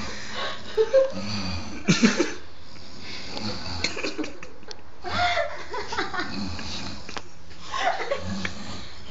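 Two men making snoring noises back and forth as if chatting, a mock 'snore language', in irregular breathy bursts every few seconds.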